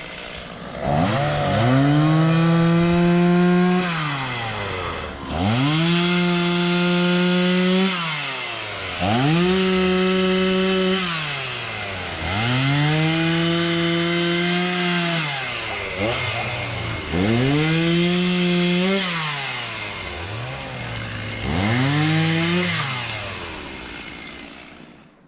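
Two-stroke Stihl chainsaw revved six times. Each time it rises from idle to a steady full-throttle whine, holds for two to three seconds, then drops back to idle, as when cutting up wood in pieces.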